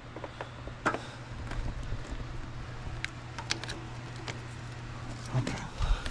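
Scattered light clicks and rattles of jump-starter cables and clamps being handled, over a steady low hum that stops near the end.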